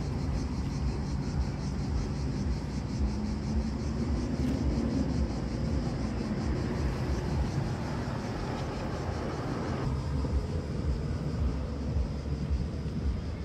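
Steady low outdoor rumble, like distant traffic, with a faint rising hum about four seconds in.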